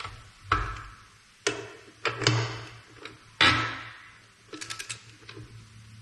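Sharp metallic clicks and clanks of a long-handled wrench working the rear wheel nuts of a Ford 7710 tractor, several separate strokes, with a quick run of ratchet-like ticks later on.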